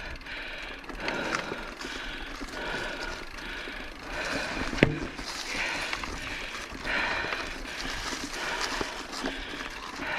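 A mountain biker's heavy breathing while riding, a breath about every second, over steady noise from the bike on the trail. One sharp knock comes about five seconds in.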